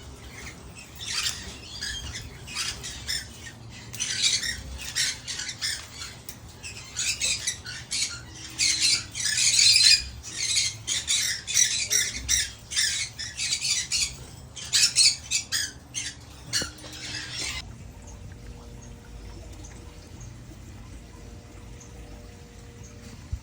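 Parrot squawking in a run of harsh, rapid, repeated calls that stop abruptly about three-quarters of the way through, leaving only a low room background.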